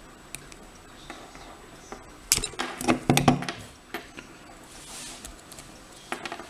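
Metal clicks and scrapes of a tool working at the retaining clip on the back of an Assa lock cylinder, with a cluster of louder knocks and rattles about two to three and a half seconds in, and a few more clicks near the end. The clip is stubborn and has not yet come off.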